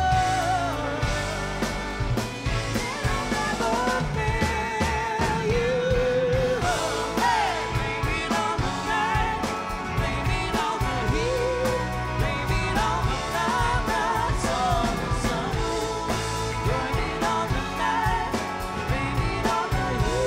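Live rock band playing: electric guitars and a drum kit, with a voice singing long, wavering notes over them.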